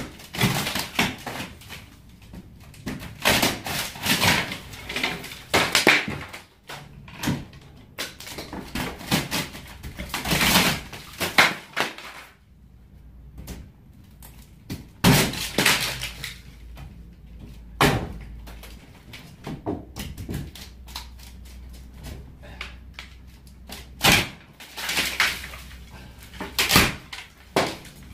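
Rotten, termite-damaged wooden ceiling boards being pulled and knocked down: irregular cracking, splintering and knocking of breaking wood, in clusters a few seconds apart, with pieces clattering as they fall.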